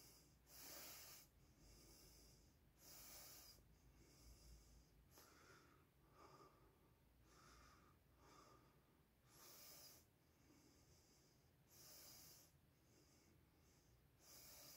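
Near silence broken by a man's faint breathing, a soft breath every two to three seconds.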